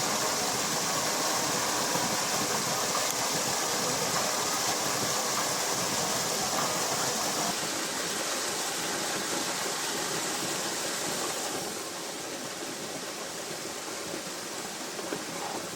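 Steady rushing noise with a strong high hiss, dropping a step in level about halfway through and again about three-quarters of the way in.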